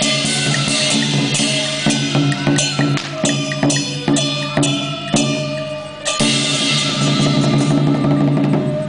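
Traditional temple-fair ritual music: drums and other percussion struck in a steady beat, about two strokes a second through the middle, over a held, stepping melody line.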